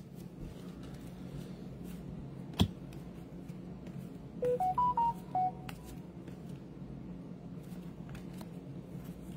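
An electronic notification chime: about six short beeps that step up in pitch and back down, lasting just over a second, about four and a half seconds in. A single sharp tap comes about two and a half seconds in, and a steady low hum runs underneath.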